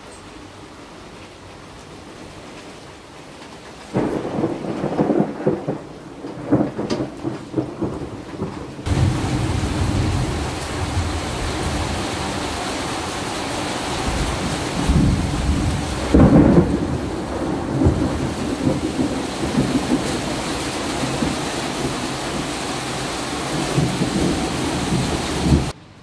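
Thunder breaking suddenly about four seconds in and crackling and rumbling for several seconds. Then a heavy downpour of rain hitting parked cars and wet asphalt, with more thunder rolling through it in the middle.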